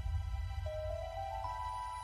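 Soft trailer music: a deep low rumble fades away under a held chord, while a slow line of single notes steps upward through the middle.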